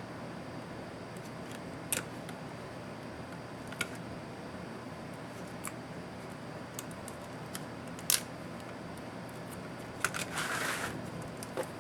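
Small clicks and taps of tools and plastic laptop parts being handled during disassembly, a few seconds apart, with a short scraping rustle near the end, over a steady background hiss.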